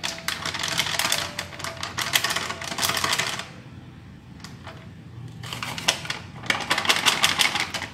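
Crinkly plastic agar-agar powder packet being squeezed and shaken out over a saucepan, a dense crackling. It comes in two bouts with a short lull of about two seconds between them.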